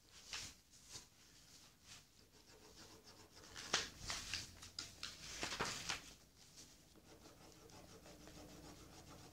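Marker tip rubbing and scratching across paper in short strokes as a drawing is coloured in, faint, with a busier run of louder strokes from about three and a half to six seconds in.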